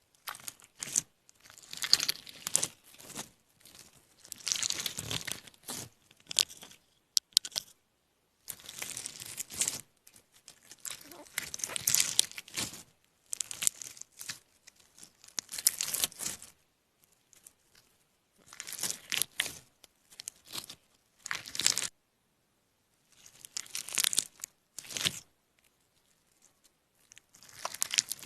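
Close-miked crinkling and tearing noises in irregular bursts, some short and some lasting a second or two, with silent gaps between them.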